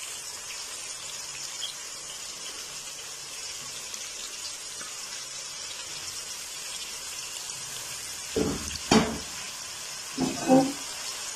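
Chopped onions sizzling steadily in hot oil in a karahi, freshly added and starting to fry. Two brief louder sounds break in about eight and ten seconds in.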